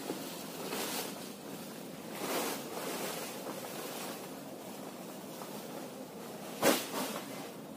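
Dry poultry litter poured out of a woven plastic sack and shifted by hand, a few soft swishing rushes. There is one sudden, much louder rush near the end.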